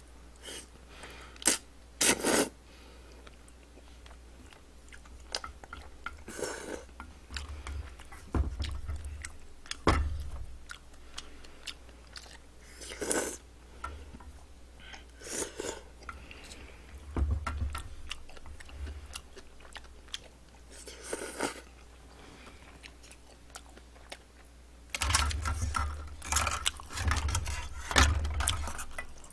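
Close-miked eating of spicy jjolmyeon noodles: chewing and slurping in short noisy bursts, with sharp clicks of chopsticks against a metal bowl. Near the end comes a dense run of louder slurps and clatter.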